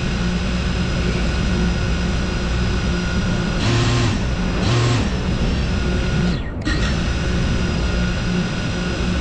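Motors of a GEPRC CineLog 35 cinewoop FPV drone spinning at idle while it sits armed on the ground: a steady high whine of several tones, with two short louder rushes about four and five seconds in. The motors spin down just past six seconds, start again moments later, and spin down again near the end.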